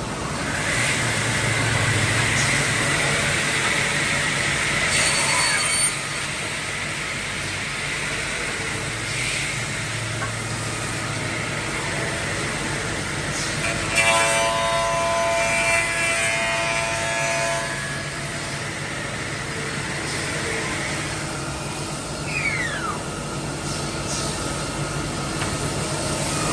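CNC mortise-and-tenon machine running and cutting wood, a steady machine noise throughout. About halfway through a pitched cutter whine stands out for a few seconds, and near the end a short whine falls in pitch.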